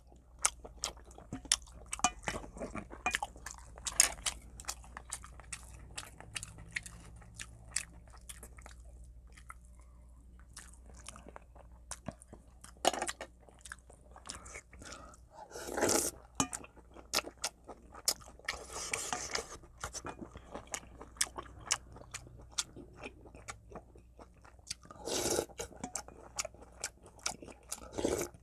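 A person eating oyster soup with rice close to the microphone: steady wet chewing and lip-smacking clicks, with a few louder sips from the spoon, the longest about two-thirds of the way through.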